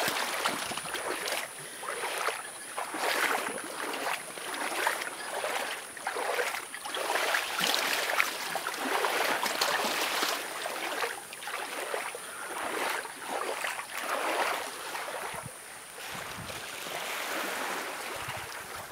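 Feet wading through ankle-deep sea water, a splash with each step about once a second, easing off over the last few seconds.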